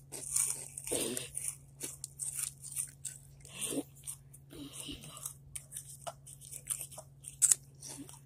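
Spicy hot chips being bitten and chewed close to the microphone: irregular crisp crunches, some louder than others, over a steady low hum.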